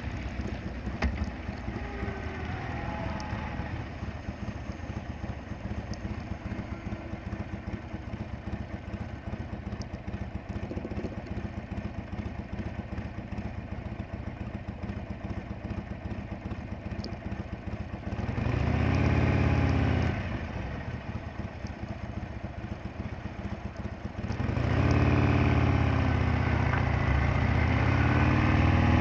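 Harley-Davidson Sportster Roadster's V-twin engine slowing down, then idling at a stop. The throttle is blipped for about two seconds around two-thirds of the way in. Near the end the engine gets louder and climbs in pitch as the bike accelerates away.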